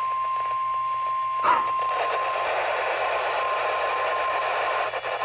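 NOAA Weather Radio 1050 Hz warning alert tone sounding steadily through a weather radio receiver, broken by a sharp click about one and a half seconds in. The tone fades out around two seconds in, leaving a few seconds of radio static hiss before the station's announcement.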